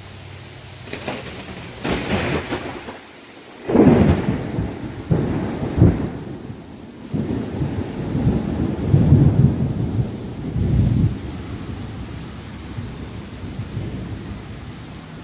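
Thunder over steady rain: two sharp cracks about a second and two seconds in, then a loud rolling rumble from about four seconds in that goes on in waves for several seconds before fading.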